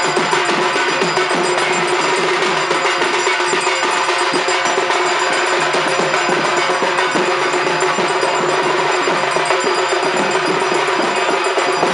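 Several dhak drums beaten with thin sticks in a fast, unbroken rhythm, with a steady metallic bell ringing above them: the drumming for the arati at Durga Puja.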